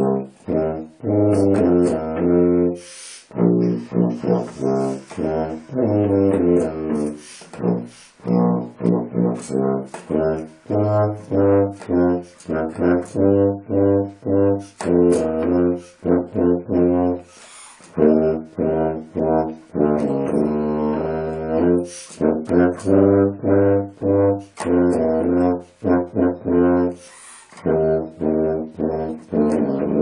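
Solo tuba playing a melody in short, separate notes, phrase after phrase, with brief pauses between phrases.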